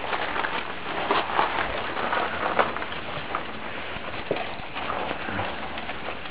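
Month-old Chesapeake Bay retriever puppies moving about, making irregular short scuffs and taps.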